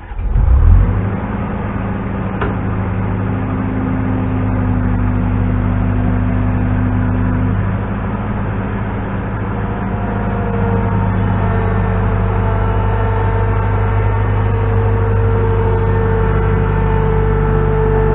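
New Holland LX665 skid steer's diesel engine starting with a loud burst, then running steadily. About ten seconds in, a higher whine joins as the loader works its forks to pick up a log.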